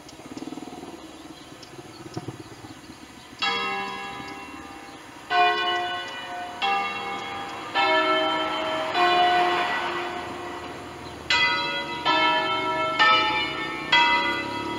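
Church bells from a peal of five cast by Pruneri in 1887, swinging on large wheels and rung by hand, striking one after another at different pitches. After a quieter opening, the strokes begin about three and a half seconds in and come roughly once a second, each ringing on under the next.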